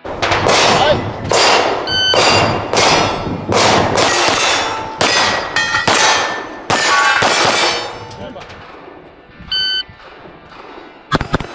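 A rapid string of about a dozen pistol shots at steel plates and poppers, each hit ringing the steel, for about eight seconds. After a short lull comes a brief electronic beep, the shot timer's start signal, and a new string of shots begins right at the end.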